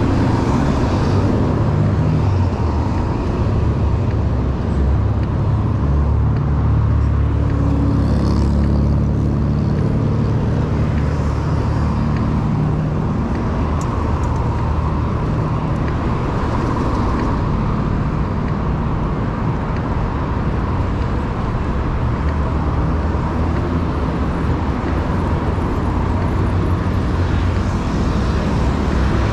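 Motorcycle engine running at a steady cruising speed on the road, with continuous wind rush over the microphone.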